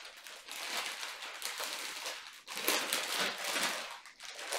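Clear plastic packaging around baby clothes crinkling and rustling as it is handled, in uneven spells.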